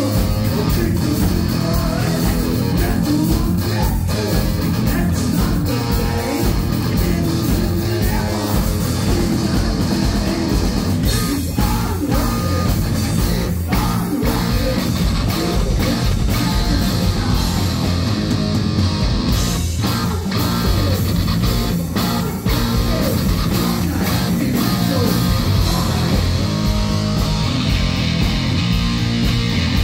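Heavy metal band playing live: distorted electric guitar and drums, with a male singer.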